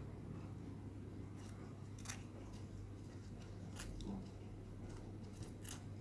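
Faint soft crackles and a few light clicks as a freshly baked, still-warm madeleine is pulled apart by hand, over a low steady hum.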